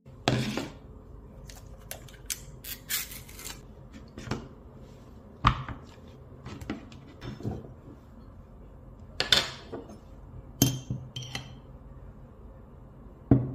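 Kitchenware handled on a wooden table: irregular clinks, taps and knocks of a spoon, a plastic bowl, a yogurt tub and a glass jar as yogurt is turned out into the bowl. A low steady hum runs underneath.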